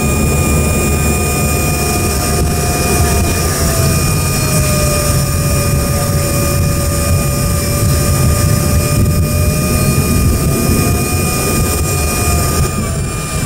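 Embraer 145's rear-mounted Rolls-Royce AE 3007 turbofans running at taxi power, heard from inside the cabin: a steady jet whine over a dense rumble. The lowest whine tone sags a little in pitch and then rises again toward the end.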